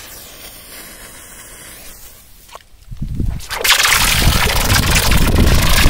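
A lit firecracker fuse hissing quietly, then about three seconds in a loud, rough churning and sloshing of water.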